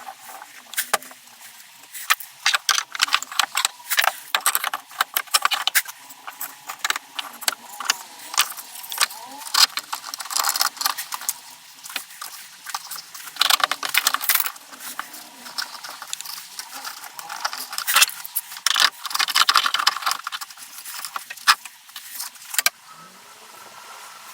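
Metal clamps and wooden slats being handled during a glue-up: irregular spurts of clattering, clicking and metallic rattling that stop near the end.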